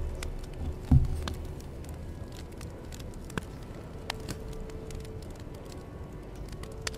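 Hand embroidery: floss pulled through taut fabric in an embroidery hoop, with small scattered clicks and rustles of needle, thread and fingers on the cloth, and a low thump about a second in.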